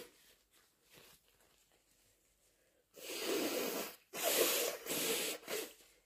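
A person blowing their nose hard: one steady blow of about a second, then after a brief breath a longer blow in two surges. Faint breathing comes before.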